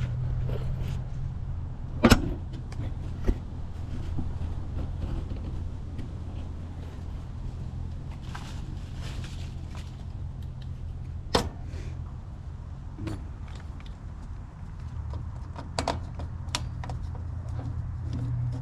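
Scattered sharp clicks and clinks of tool and wire handling during wiring work on an air-conditioning condenser, over a steady low hum.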